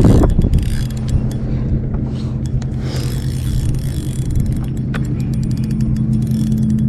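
Boat motor running with a steady low hum that sets in about a second in and grows slightly louder toward the end, with scattered light clicks over it.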